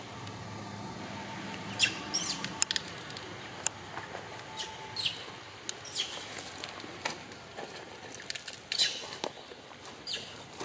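Baby macaque squeaking in short, high, falling squeaks about once a second while being held back by an adult.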